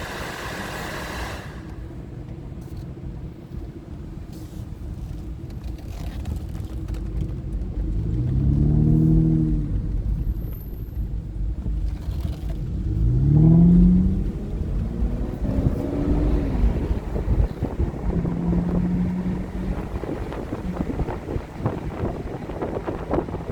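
2009 Aston Martin DB9's 6.0-litre V12 pulling the car along under way, over a steady low road rumble. Twice, about eight and about thirteen seconds in, the revs climb and then drop as the car accelerates, and these are the loudest moments.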